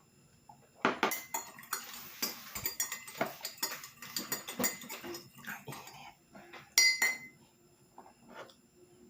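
Metal spoon stirring in a cup, clinking rapidly and irregularly against its sides for about five seconds, then one louder ringing clink near the end.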